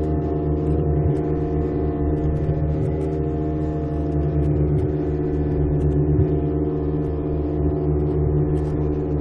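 Motorboat engine running steadily under way, a constant droning hum, with the hiss and splash of water rushing past the hull.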